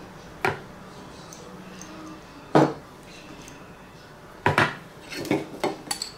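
A metal spoon and kitchenware knocking against each other: a few separate sharp knocks, the loudest about two and a half seconds in, then a quicker run of clinks near the end.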